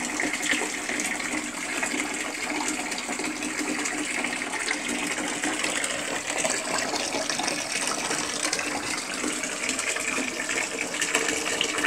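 Bathtub faucet running, a steady stream of water splashing onto the tub floor around the drain.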